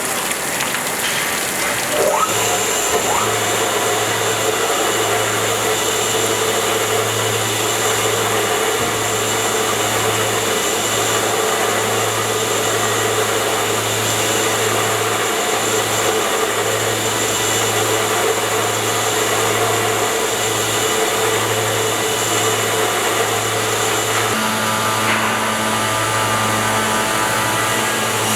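CNC four-blade ceramic tile cutting machine running: a steady motor whir with a constant low hum and high whine, with no break.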